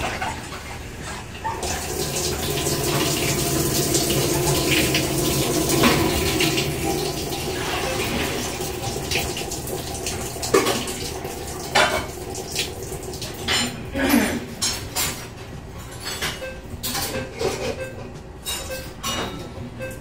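Water rushing into the washer through the Maytag top-loader's fabric softener valve, switched on in the diagnostic test: the flow starts about a second and a half in, swells, and dies away about halfway through. Scattered clicks and knocks follow.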